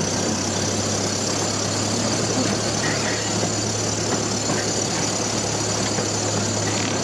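Zoo train's engine running steadily while riding, a constant low hum under an even noise.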